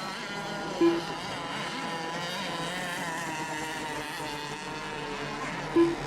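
Several radio-controlled racing boat engines running together, their high whine wavering up and down as the boats circle on the water. Two short, loud beeps cut through, about five seconds apart.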